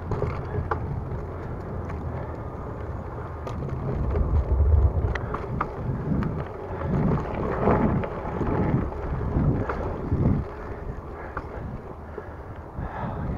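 Wind buffeting a handlebar camera's microphone during a ride on a Raleigh Redux bicycle over a dirt forest trail, strongest about four to five seconds in. Under it are tyre noise on the dirt and a few sharp clicks and rattles from bumps.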